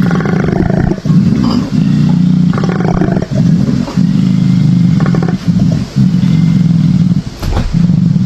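An animal's deep, low-pitched call, repeated as a run of pulses about half a second to a second long with brief breaks between them.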